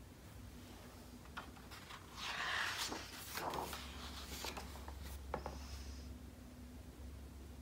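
Page of a large hardcover picture book being turned: a paper rustle and swish about two seconds in, with a few light taps of hands on the book.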